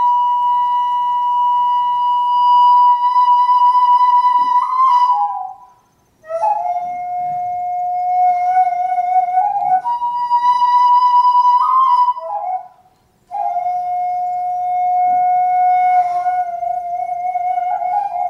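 Solo traditional Korean transverse bamboo flute playing a slow melody of long held notes, alternating between a higher and a lower pitch. Each note ends in a bend or slide, and the playing breaks off twice for a breath.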